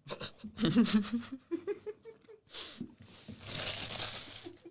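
Burger wrappers crinkling and tearing, with eating noises close to the microphone. About a second in there is a short muffled vocal sound, and near the end a longer crinkling rustle.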